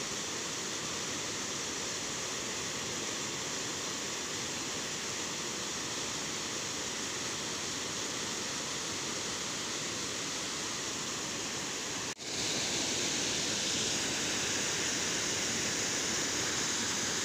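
Water pouring over a weir and churning in the pool below: a steady rushing noise. About twelve seconds in it drops out for an instant and comes back a little louder and hissier.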